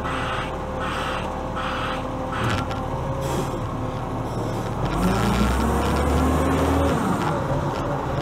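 Iveco Acco garbage truck's diesel engine running as the truck drives, with a regular pulsing sound about twice a second for the first couple of seconds. About five seconds in, the engine revs up with a rising pitch for about two seconds as the truck pulls away.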